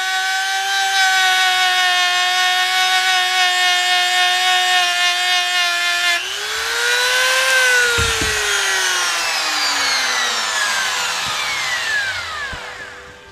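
Harbor Freight rotary tool with a buffing wheel, running at high speed with a steady whine while polishing metal. About six seconds in, its pitch rises briefly, then it slowly winds down to a stop.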